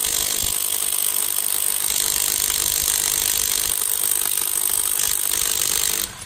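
Cordless impact wrench, a copy of the Makita DTW285, hammering rapidly and steadily on its high setting to break loose a car wheel lug nut torqued to 110 ft-lbs; it stops abruptly just before the end.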